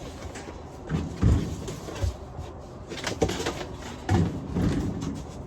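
Hollow plastic blow-mold figures being handled and set in place, giving a series of separate knocks and thumps.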